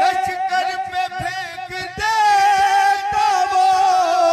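Men singing a manqabat, an Urdu devotional song, with long held wordless notes and wavering melodic turns, moving to a new sustained note about two seconds in, over a regular percussive beat.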